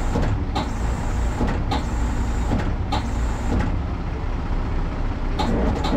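Heavy truck's diesel engine running steadily while the truck is winched up a slope, with light ticks about once a second and a quick cluster of them near the end.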